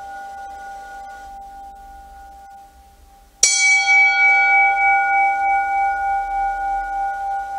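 A struck bell rings on with several steady tones. The fading ringing of an earlier stroke dies away, then a sharp new strike comes about three and a half seconds in, bright at first and settling into a long, even ring.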